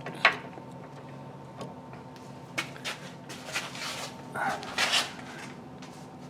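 Hand ratchet and socket being handled: a sharp metallic click about a quarter second in, a few lighter clicks, then two short scraping rattles in the second half.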